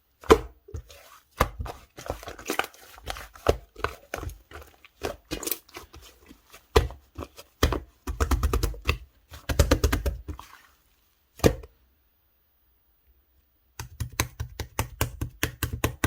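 Clay-mixed slime being pressed and poked by hand, giving quick runs of crackly clicks and pops. A silent stretch of about two seconds falls about three-quarters of the way through.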